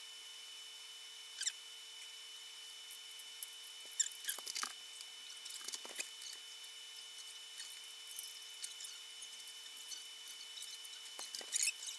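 Clicks, scrapes and small rattles of a small screwdriver and tiny screws on the plastic fan shroud of a graphics card cooler as the fans are screwed back in. They come in short scattered bursts, most clustered about four seconds in and again near the end, over a faint steady high-pitched tone.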